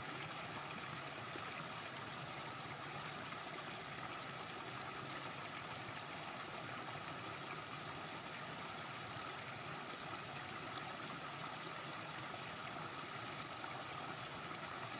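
Shallow rocky stream running steadily over a small cascade between stones, an even splashing and trickling.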